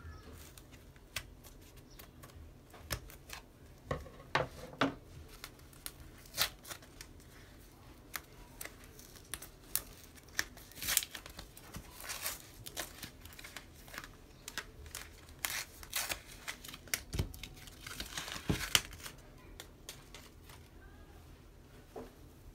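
Scissors snipping at the packaging of a multipack of socks, then crinkling and tearing of the cardboard header band as it is pulled off by hand: a string of irregular sharp clicks and crackles, busiest in the middle, dying down to soft fabric handling near the end.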